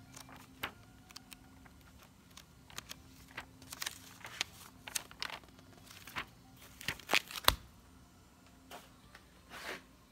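Pages of an old paper stamp album being flipped by hand, rustling and crackling in quick, irregular flicks. There is a sharp thump about three quarters of the way through.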